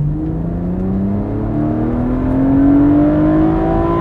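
BMW 130i's naturally aspirated 3.0-litre straight-six under acceleration, its engine note rising steadily in pitch as the revs climb in one gear.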